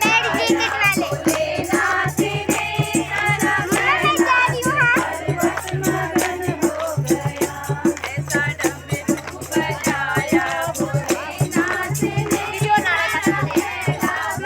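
Music: a sung melody, with its voice bending in pitch, over a fast, even rattle-like percussion beat.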